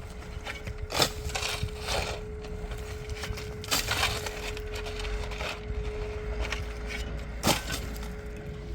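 Irregular scraping and crunching of rough material being handled, with a sharp knock about a second in and another near the end, over a steady low hum.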